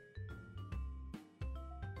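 Background music: short, bright notes over a steady low beat.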